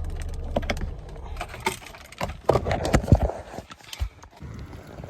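A car's low running hum stops about a second in. Then come a string of clicks, knocks and jangling keys, with a louder cluster of knocks around the middle, as someone gets out of the car with packages.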